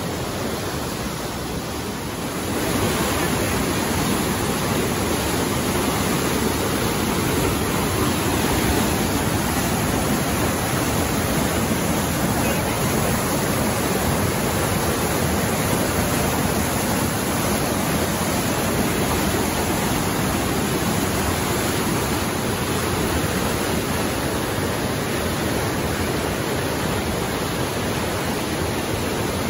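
Flood-swollen Avalanche Creek rushing and churning through its rocky gorge in a steady, loud roar of whitewater, high with storm runoff. It grows louder about two and a half seconds in.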